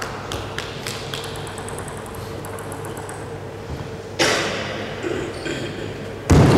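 Celluloid table tennis ball clicking sparsely as it is readied for a serve and then played, with a sudden burst of noise about four seconds in. Loud crowd noise, likely applause, breaks out just before the end.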